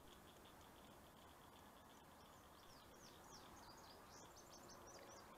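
Faint outdoor birdsong: a steady, rapid chirping trill of about five notes a second, joined from about two seconds in by a run of quick, sweeping whistled notes that stops near the end.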